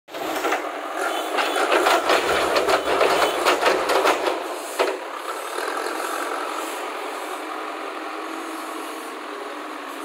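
JCB 3DX backhoe loader's diesel engine working under load as its front bucket scrapes through soil and broken-brick rubble, with dense clattering and knocking of the debris for the first four seconds or so and one sharp knock just before five seconds. After that the engine runs more steadily and a little quieter.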